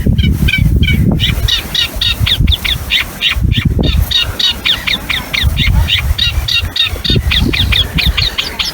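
Reed warbler singing: a long, unbroken run of short, quickly repeated notes, about five a second, with a low rumble underneath.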